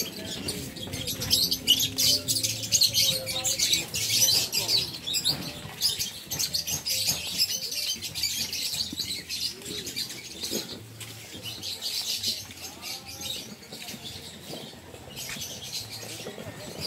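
Many small birds chirping and chattering at once, a dense continuous twittering, with a few lower single calls about ten seconds in and again near the end.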